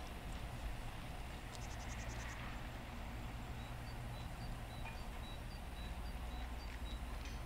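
Outdoor ambience of a steady low rumble with a small bird calling over it: a quick rattling trill about a second and a half in, then a run of short, high, evenly repeated notes, about four a second, through the second half.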